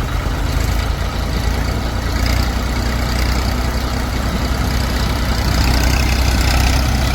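Heavy diesel engine of farm machinery running steadily, with a deep low rumble.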